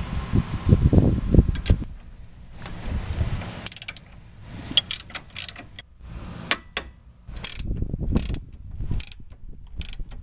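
Ratcheting wrenches clicking in short runs, with pauses, as nuts on a car's front suspension are turned, after a few dull knocks near the start.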